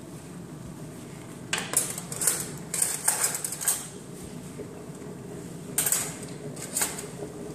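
Metal cutlery clinking and clattering as spoons and forks are dropped into a kitchen cutlery drawer. It comes in two spells: a longer run of clinks starting about a second and a half in, and a shorter one about six seconds in.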